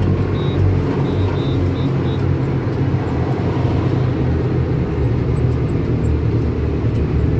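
Diesel engine of a yellow construction vehicle running steadily under way, a loud, even low rumble heard from inside its cab.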